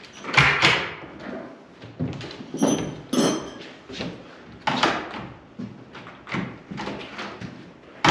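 Wooden exterior door being swung and worked in its frame: a series of separate knocks and thuds as it bumps and closes against the jamb, with a brief high-pitched ring about three seconds in.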